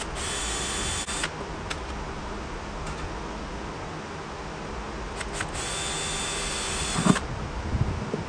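Cordless drill running at speed and drilling through a thin aluminium panel in two runs, a short one of about a second, then a longer one of about a second and a half. A few small clicks between them, and a sharp knock near the end as the second run stops.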